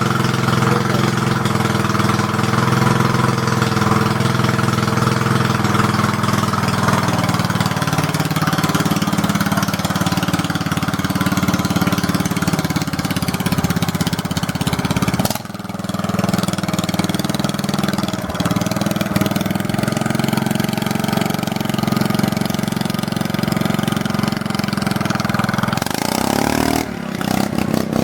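Loud lawn mower engine running steadily under load, with a brief drop in level about halfway through and a rise in engine pitch near the end.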